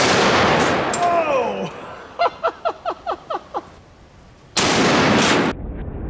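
Serbu RN50 .50 BMG rifle firing once, a very loud shot that rolls on and fades over about two seconds; a quick run of about seven short falling notes follows. The same shot sounds again near the end, from a second angle as the fountain is hit, and cuts off suddenly into a lower, steady noise.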